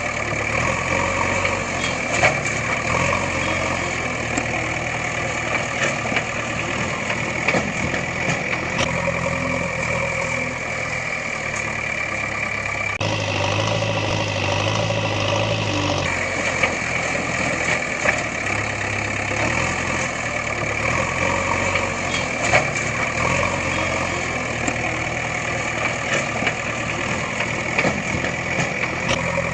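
Vehicle engine running steadily at idle, with a few sharp clicks. The sound changes abruptly for about three seconds near the middle.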